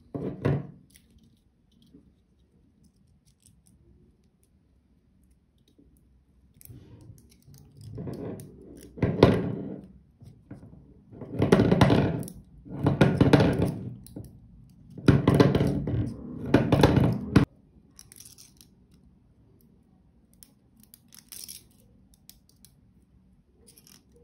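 Scraping and rubbing of a small plastic transformer bobbin turned in the fingers as 0.3 mm copper magnet wire is wound onto it by hand. Quiet handling at first, then a run of loud bursts about a second long in the middle that stop abruptly.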